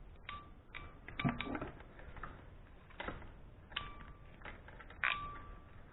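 Ratcheting Molex-style crimper clicking shut on a 2.8 mm uninsulated terminal: about six sharp metallic clicks at uneven intervals, several with a short ring after them.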